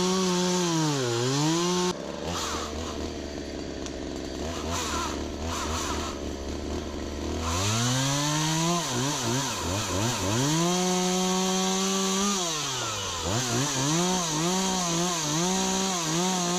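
Two-stroke chainsaw engine running at high revs, dropping to idle about two seconds in and idling for several seconds. It then revs back up and holds high, and near the end it is blipped up and down several times.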